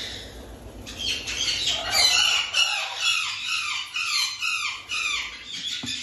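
Parrots in an opened nest box calling: a rapid, regular series of harsh squawks, each falling in pitch, about two or three a second. A single sharp click comes near the end.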